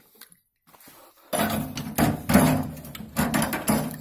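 Metal parts and tools clattering as they are handled and set down: quiet at first, then a busy run of knocks and rattles from about a second and a half in.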